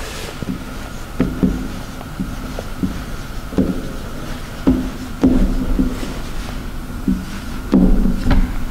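Whiteboard marker writing on a whiteboard: about a dozen short strokes and taps of the felt tip, several with a brief squeak, as the letters are drawn.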